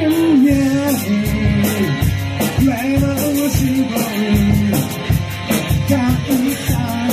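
Rock music with a singing voice over guitar and a steady drum beat.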